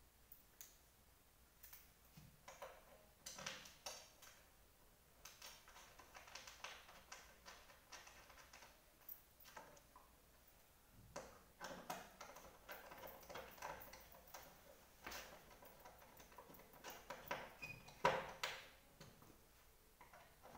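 Faint, irregular clicks, taps and short scrapes of hands and a tool working on the parts of a dismantled executive office chair, with one louder knock near the end.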